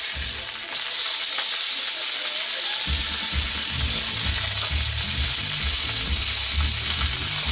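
Rib steak sizzling in a hot frying pan as the pieces are turned over, a steady high hiss, with dull low knocks from about three seconds in.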